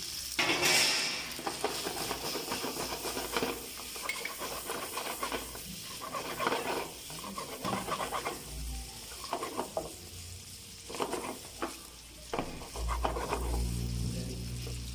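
Chicken pieces frying in hot oil with chilli sauce and green chillies, sizzling steadily while a spoon stirs and scrapes them around the pan in irregular strokes, loudest about a second in.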